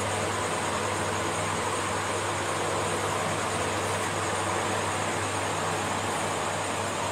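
Steady, unchanging hiss-like background noise with a low hum underneath, like a room fan or air conditioner running.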